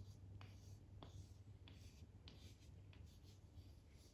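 Faint scratching strokes of drawing by hand, short strokes every half second or so, over a low steady hum.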